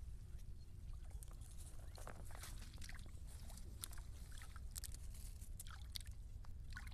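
Hands groping in shallow muddy water: faint scattered splashes and drips, over a steady low rumble.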